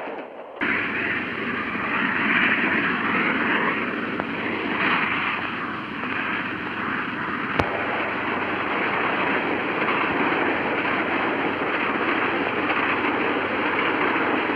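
Passenger train running, a steady, muffled rumble on an old newsreel soundtrack, cutting in suddenly just after the start, with a single sharp click about seven and a half seconds in.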